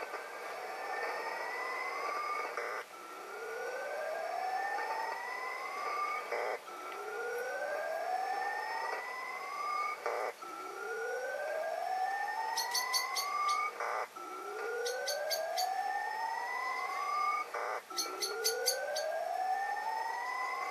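Shortwave receiver audio of an unidentified signal on the 20-metre amateur band: a pair of rising whistling tones, one low tone curving up and a higher one climbing steadily, repeating about every four seconds over receiver hiss. Birds chirp in short bursts during the second half.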